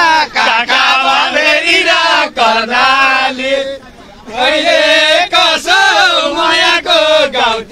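A man singing loudly in a wavering, chant-like voice with held notes, breaking off briefly about four seconds in.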